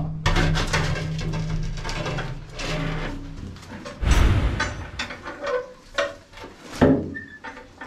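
Steel checker-plate manhole cover being levered up with lifting hooks and dragged aside: scraping and metal clatter, with a loud clank about four seconds in and a sharp knock near the end. Background music plays underneath.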